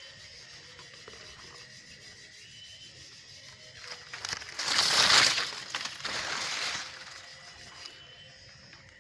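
Sugarcane leaves rustling and scraping as they are brushed aside close by. The quiet breaks about four seconds in with a loud burst of rubbing noise, then a softer stretch that fades after about another second.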